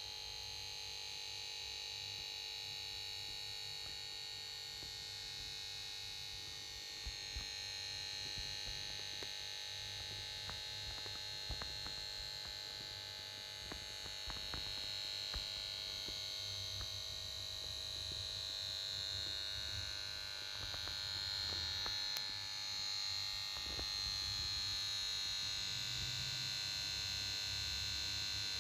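Power supply board of a Samsung PS42A410C1XBT plasma TV making a steady high-pitched whine with a low hum underneath, with scattered faint clicks through the middle and getting a little louder in the second half. It is the sign of a faulty power board: the set plays its start-up melody but will not come on.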